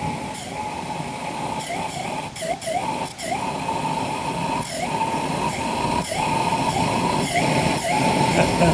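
Small homemade pulsejet engine running with a high, siren-like buzz that keeps faltering and catching again at irregular moments, about every half second, and grows louder toward the end. It has not lit properly and is struggling to settle into steady running.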